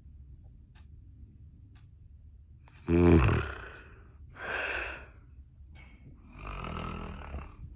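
A woman snoring in her sleep. After a few quiet seconds comes one loud, rattling snore, then a breathy breath, and another longer, softer snore near the end.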